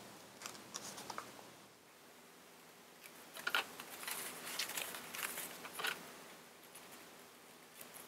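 Scissors snipping folded construction paper, a few faint snips near the start. Then, from about three seconds in, the stiff paper rustles and crackles as it is unfolded and folded again.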